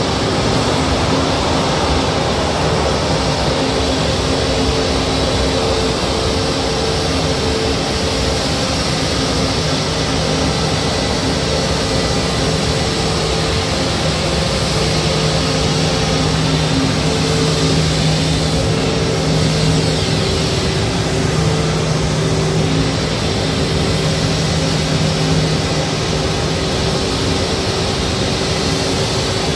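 Jet engines of an Airbus A320neo-family airliner idling at close range: a steady, loud hiss with a low, slightly wavering hum.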